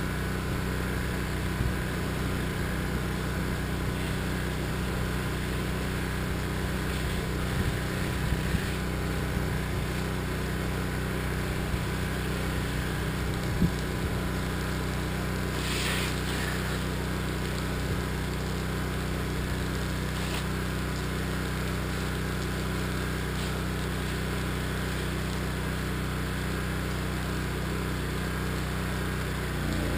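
Small engine of a pressure washer running steadily at a constant speed.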